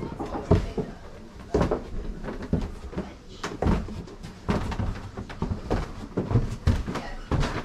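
Footsteps thudding on wooden floorboards, about one step a second, with irregular knocks in a small boarded room.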